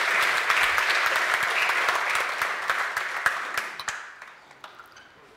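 Audience applauding: a dense patter of many hands clapping that dies away over about a second and a half, three to four seconds in, leaving a few scattered last claps.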